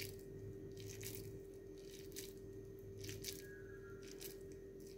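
Hand squeezing a moist green gram mixture into a ball, heard as a string of faint, irregular crackles and squishes over a steady low hum.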